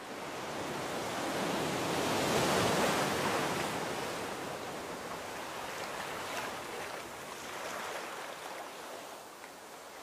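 Sea surf washing onto a beach, a steady rushing noise that swells to its loudest about two to three seconds in and then slowly eases off.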